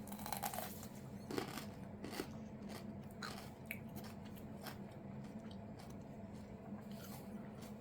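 A person bites into a soft, ripening Sugar Rush Stripey pepper and chews it, giving a few faint crunches and mouth clicks. The first bite comes right at the start, with scattered chewing sounds after it.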